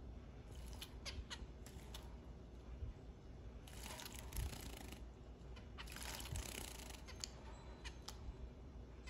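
Zebra finch bathing in a shallow dish of water, fluttering its wings and splashing in two bursts, about four and six seconds in. Short, high finch calls come now and then between the splashes.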